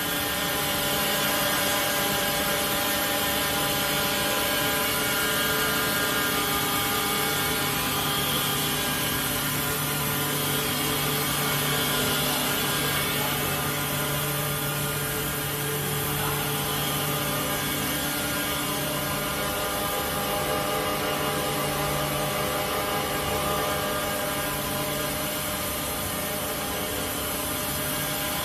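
High pile loop (plush) circular knitting machine running steadily: an even mechanical noise with several steady tones and no change in pace.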